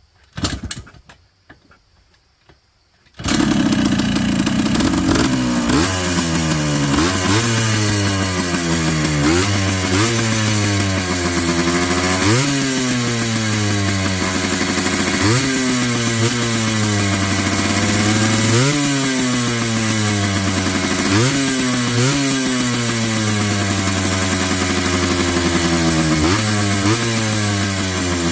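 Yamaha Blaster ATV's two-stroke single-cylinder engine starting abruptly about three seconds in, after a single short knock. It is then blipped over and over, each rev a quick rise in pitch that sinks back to idle.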